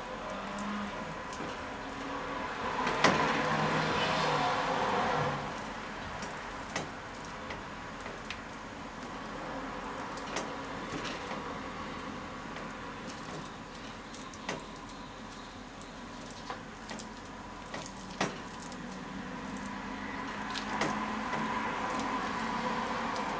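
Hands squeezing and turning bone-in short ribs in a flour coating in a stainless steel bowl: soft squishing and rustling, with scattered sharp clicks of fingers or bone against the bowl, over a faint steady hum.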